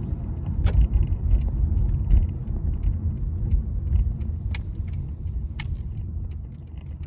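Steady low rumble, as of a car on the move, with scattered light metallic clicks and jingles like keys.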